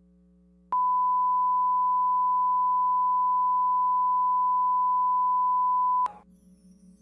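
Steady, high-pitched reference tone (the line-up tone that runs with colour bars at the head of a broadcast tape), starting about a second in and cutting off abruptly about a second before the end. Faint low hum under it, and a faint hiss after it stops.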